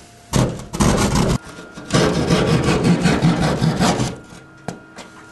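Hand drywall saw cutting through gypsum drywall with rapid back-and-forth strokes, in a short burst and then a longer run of about two seconds. It is cutting out the rectangular hole for a low-voltage jack mounting bracket. A single click follows near the end.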